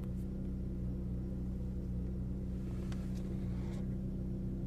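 Lada Vesta's engine running steadily, heard from inside the cabin: an even, unchanging hum with a few faint ticks.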